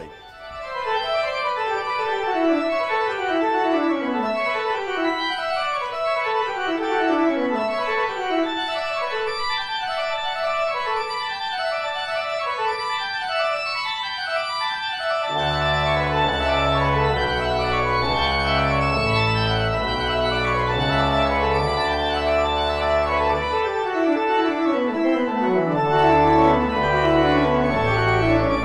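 Pipe organ playing: repeated quick falling figures for the first half, then deep pedal notes and full chords come in about halfway through, drop out briefly, and return near the end.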